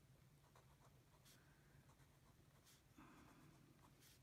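Faint scratching of a fine-tip pen writing on planner paper: a few short strokes over a quiet room hum.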